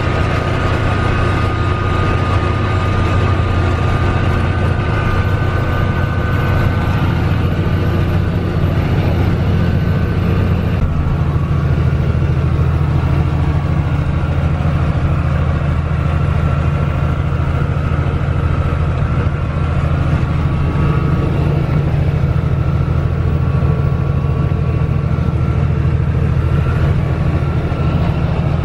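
Mack R Series truck's Mack diesel engine pulling steadily at cruising speed, heard from inside the cab as a low drone with road noise. The sound shifts abruptly about eleven seconds in.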